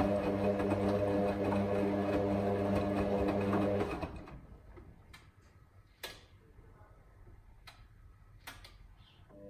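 Hotpoint WM63 washing machine's drum motor turning the drum in the wash tumble with a steady hum, stopping about four seconds in. A pause in the tumble follows, quiet apart from a few faint clicks.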